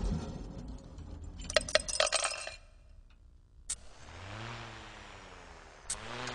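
Metal car parts knocking each other in a chain reaction: a quick cluster of clinks and rattles, a single click, then a low wavering rumble as an engine block and a wheeled radiator fan slide and roll across a wooden floor.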